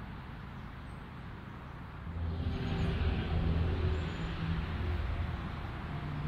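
A motor vehicle's engine running nearby, with a low hum that swells louder about two seconds in and eases off a few seconds later.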